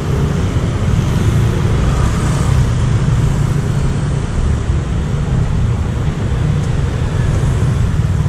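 Street traffic: cars and motor scooters running on a busy city street, a steady low rumble.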